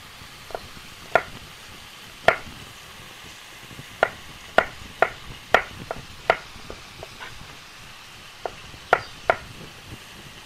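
Kitchen knife chopping garlic on a plastic cutting board: sharp taps on the board at uneven intervals, in short runs with pauses between.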